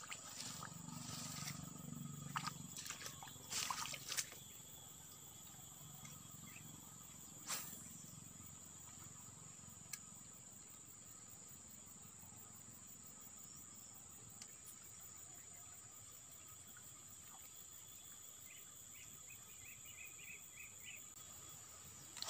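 Quiet outdoor ambience with a steady, thin high-pitched insect whine. A few rustles and knocks from handling the fishing gear come in the first few seconds, and a brief run of quick high pips comes near the end.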